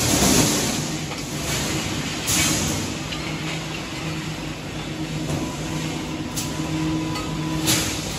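Steady hum of factory machinery with a few short metal clanks as steel base-jack parts are handled and loaded into an automatic welding machine.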